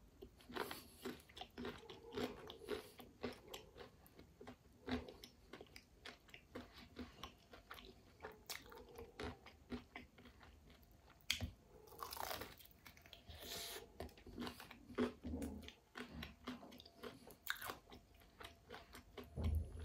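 Close-up eating sounds of a crispy fried chicken wing: the breading crunches in short, irregular bites, with wet chewing in between.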